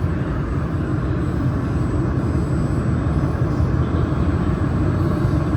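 Steady low rumble and hiss of running machinery, even throughout, with a faint high steady whine.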